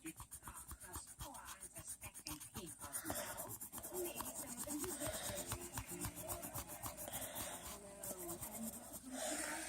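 Colouring on paper with rapid back-and-forth strokes, a continuous scratchy rubbing.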